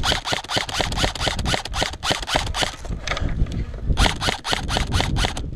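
Airsoft electric rifle firing on full auto in rapid clattering bursts: one long burst of about three seconds, a short pause, then a second shorter burst.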